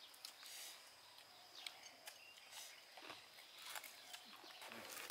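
Near silence: faint outdoor background with a few soft, scattered clicks.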